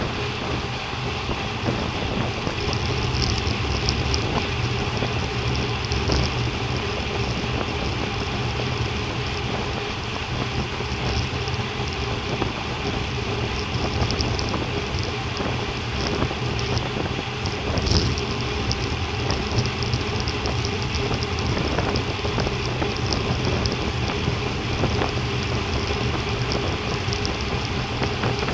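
Steady rush of wind over a bike-mounted camera's microphone at about 50 km/h, with road-bike tyres rumbling on asphalt.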